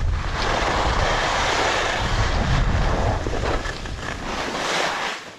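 Skis hissing and scraping over packed snow, with wind buffeting the camera microphone during a downhill run. The sound eases near the end as the skier slows to a stop.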